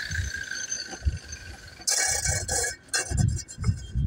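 Angle grinder's steady whine fading out over the first two seconds. A short harsh scrape follows, then scattered clicks and low knocks.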